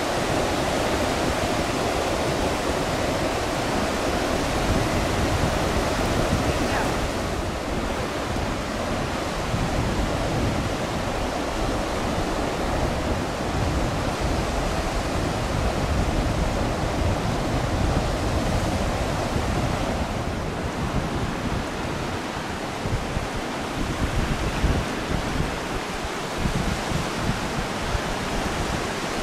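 Baltic Sea surf washing on a wide sandy beach in a steady rush, with wind buffeting the microphone as an uneven low rumble.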